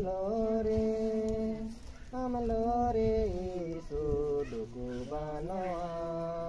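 Slow unaccompanied singing with long held notes, pausing briefly about two seconds in before the melody moves on in small steps.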